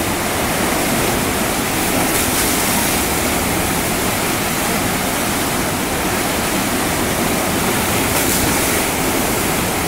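Fast river water rushing steadily through a standing surf wave, a loud, unbroken churn of whitewater.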